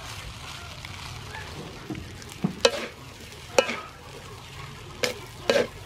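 Fried rice sizzling in a large metal wok as a spatula stirs and tosses it. The spatula scrapes sharply against the wok about five times in the second half.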